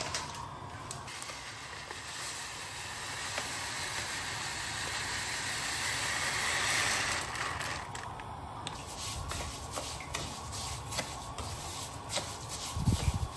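Granulated sugar pouring in a steady hissing stream into a non-stick kadhai holding a little water: the start of a sugar syrup. After that, a spatula scrapes and clicks through the wet sugar as it is stirred, with a thump near the end.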